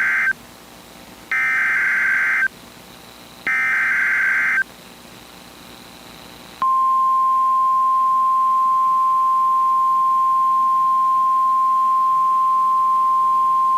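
NOAA Weather Radio alert opening: the tail of one burst of warbling SAME header data tones and two more full bursts, each about a second long. About two seconds after the last burst, the steady 1050 Hz warning alarm tone begins and holds. This is the start of an Emergency Alert System activation for a special marine warning.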